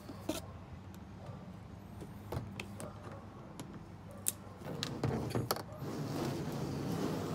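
Plastic parts of a Halloween animatronic doghouse being handled and fitted together: scattered sharp clicks and knocks, busier in the last couple of seconds, over a low steady hum.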